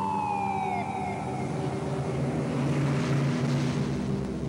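Emergency vehicle siren falling in pitch and fading out within the first second, over a steady low drone and a swelling rush of noise about three seconds in.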